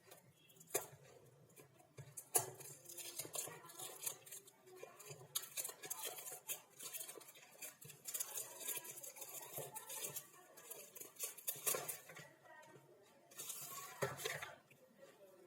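Smartwatch box and packaging being handled and opened: a run of clicks, light knocks and rustles of cardboard and plastic, with a longer rustle near the end.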